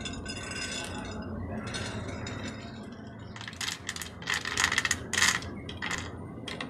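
Small hardened homemade chocolate chips being poured from a glass jar and clattering onto a ceramic tray. A light rattle comes first, then sharper, louder clinks from about three seconds in. The cook points to this crisp sound as showing the chips turned out perfect.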